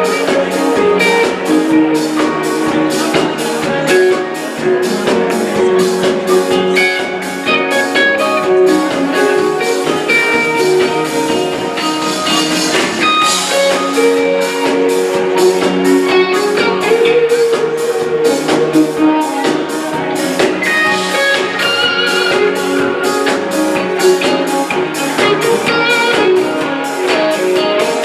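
Live rock band playing an instrumental passage: electric guitar lines over a steady drum beat.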